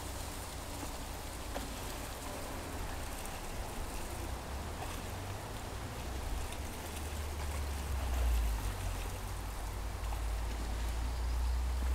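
Shallow creek water running and rippling over gravel as a steady hiss, with a few faint small splashes. Under it runs a low rumble on the microphone that swells about eight seconds in and again near the end.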